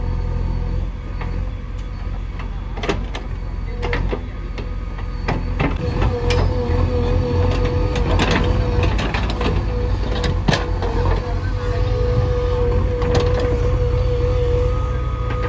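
JCB 3DX backhoe loader's diesel engine running steadily, with a whine from the hydraulics setting in about six seconds in as the backhoe arm works. Scattered knocks and clanks from the bucket and boom digging dung.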